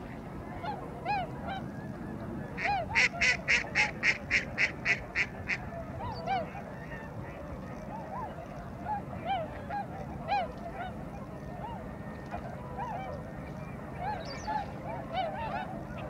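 Waterbirds calling: many short calls that rise and fall in pitch throughout, with a run of about a dozen loud, rapid calls, about four a second, from about three to five and a half seconds in.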